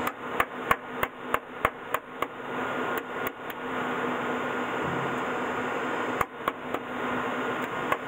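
Sharp hard taps in short runs of about three a second, knocking on a magnetic contactor that won't pull in. A steady machine hum runs underneath.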